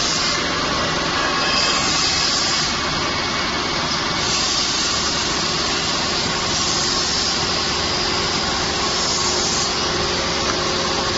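Automatic syringe production line running, its conveyor and labeling machine giving a steady mechanical whirr, with a hiss that swells and fades every few seconds.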